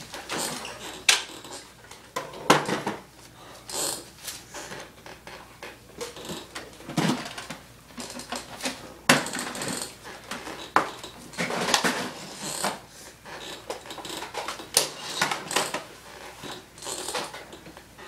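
Irregular clatter and knocks of small hard objects being handled and set down, with rustling between them and a few sharper knocks scattered through.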